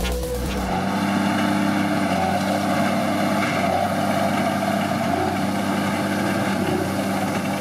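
Fendt tractor engine running steadily under load, pulling a working New Holland big square baler, with a steady hum and rushing noise.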